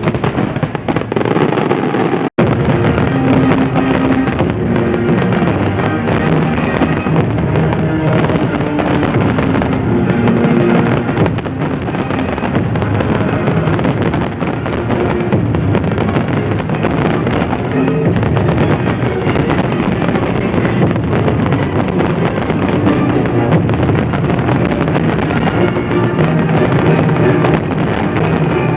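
Fireworks display bursting and crackling densely and without a break, with music playing over it. The sound cuts out for an instant about two seconds in.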